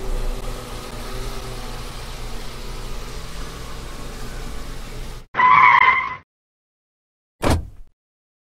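A run of separate car sound effects. First a steady car driving noise for about five seconds, which cuts off abruptly. Then a loud, short car horn honk of just under a second. Near the end comes a brief sharp thump that quickly dies away.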